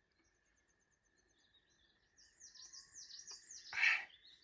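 Wild birds singing: a quick run of high, evenly repeated notes, then a louder string of falling chirps from about halfway, ending in a short, loud, harsh burst near the end.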